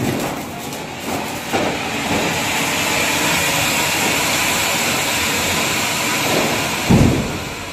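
Ground fountain firework (anar) spraying sparks with a loud, steady hiss. A deep firecracker bang sounds near the end.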